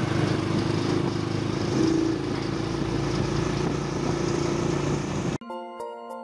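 Motorcycle engine of a tricycle running steadily under way, heard from the sidecar with wind rushing past. About five seconds in it cuts off abruptly and light xylophone-like music starts.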